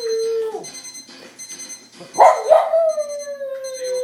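Puppy howling in two long, falling howls, the second starting sharply about halfway through, in answer to a beeping alarm clock heard faintly and high behind it.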